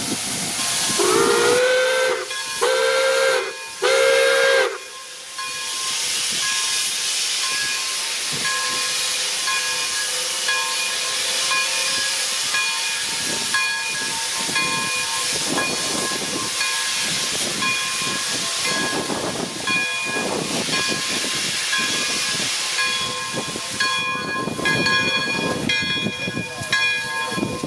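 Steam locomotive whistle sounding three short blasts, the first sliding up into its chord. Steady hissing steam follows, with the locomotive's bell ringing over it, louder near the end.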